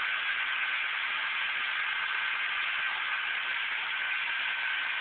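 Steady, even hiss with a faint steady high tone running through it, and no distinct events.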